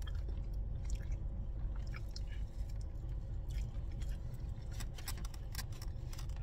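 Someone chewing a mouthful of ground beef quesadilla, with small scattered mouth clicks, over a low steady hum.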